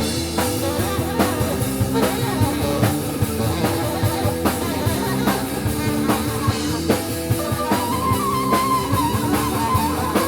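Live psychedelic space-rock band playing an instrumental passage: a steady drum-kit beat under bass and guitar, with a wavering held lead line coming in about eight seconds in.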